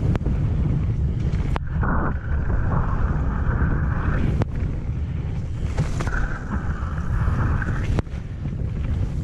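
Wind buffeting the camera microphone over the rumble of a Haibike Nduro 8 electric mountain bike's tyres on wet, loose gravel during a fast descent, with a rushing hiss that comes and goes and a few sharp knocks as the bike hits stones.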